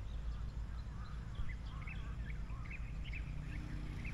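Crows in a flock overhead, giving many short, scattered calls, over a steady low rumble of wind on the microphone.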